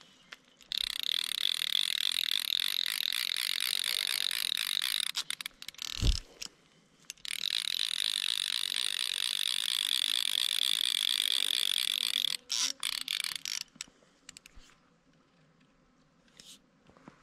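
Fly reel's clicking drag running in two long spells as a hooked brown trout pulls line off the reel, with a single thump about six seconds in.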